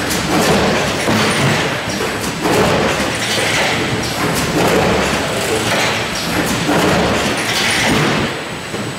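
Hamrick Model 600D-S stainless steel case packer running: a dense clatter of knocks and thumps, with a surge of noise about once a second as the machine cycles.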